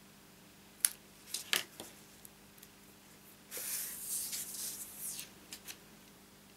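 Small scissors snipping thin cardstock, a few sharp cuts about a second in, then a longer papery rustle as cardstock strips are slid and handled on a paper sheet, with two light taps near the end.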